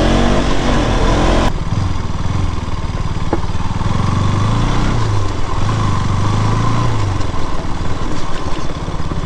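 KTM RC 200's single-cylinder engine running as the motorcycle is ridden. The revs climb for the first second and a half, the sound changes abruptly, and then the engine pulls at low speed with its revs rising and falling slightly.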